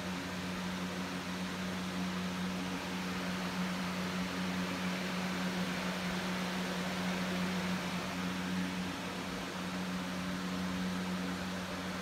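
Air conditioner running: a steady blowing hiss over a constant low hum.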